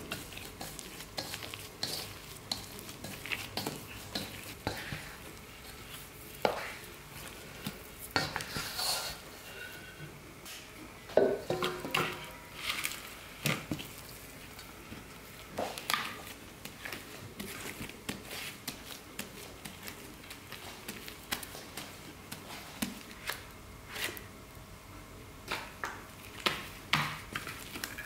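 Gloved hands working sticky bread dough in a stainless steel bowl and on a metal tray: irregular squishes, pats and scrapes, with a plastic spatula scraping dough off the bowl. A louder knock and scrape comes about eleven seconds in.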